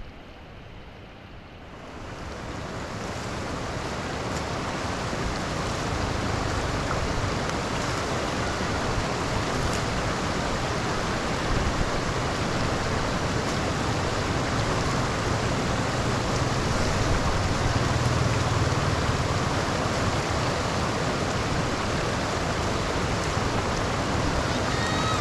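Steady rush of running water and rain. It builds over the first few seconds, then holds even.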